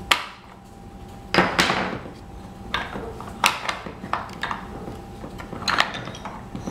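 Wooden toy pieces clacking and knocking against each other and the wooden toolbox as a toddler rummages through it: irregular sharp knocks, sometimes two or three in quick succession.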